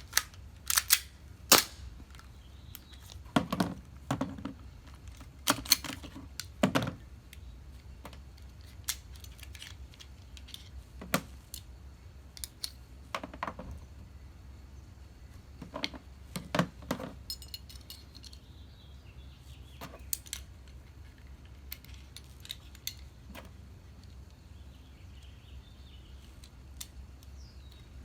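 Sharp clicks and clacks of a Glock 17 gas airsoft pistol being taken apart and put back together by hand, as plastic and metal parts snap and knock together. They come thick and loud in the first several seconds, then sparser.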